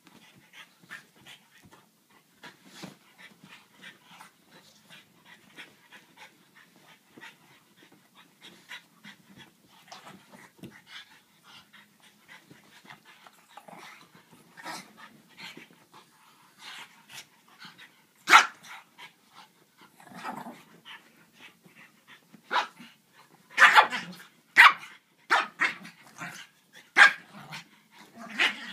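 Two small dogs, a French bulldog puppy and a griffon, play-fighting on blankets: soft scuffling and panting, then a run of sharp barks over the last third, thickest near the end.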